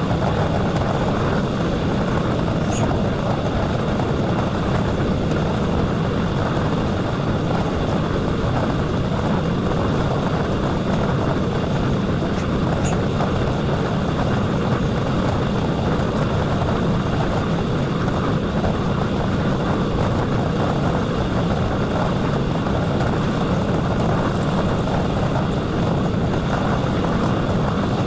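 Steady wind rush on the microphone of a handlebar-mounted camera on a fast-moving bicycle, a dense low rumble without breaks.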